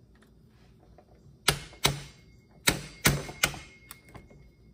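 Hammer striking a flathead screwdriver set against the centre piece of a chainsaw clutch, five sharp metallic taps with a faint ring hanging after them, driving the clutch tight onto the crankshaft.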